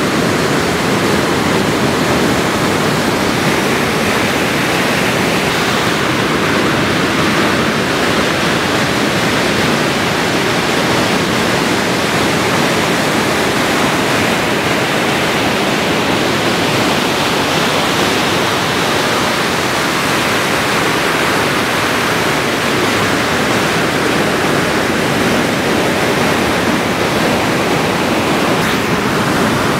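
Ocean surf breaking along the beach: a loud, steady rushing wash with no distinct single crashes.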